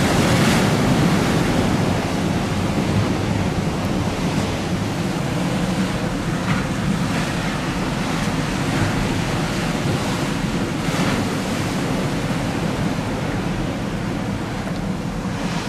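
Strong wind buffeting the microphone over choppy river waves: a steady, loud rushing noise, with a few brief swells of louder hiss.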